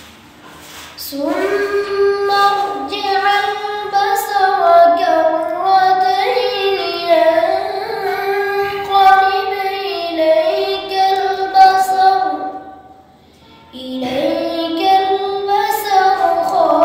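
A boy's voice reciting the Quran in a melodic, drawn-out chant, holding and gliding long notes. He chants two long phrases, with a breath pause about 13 seconds in.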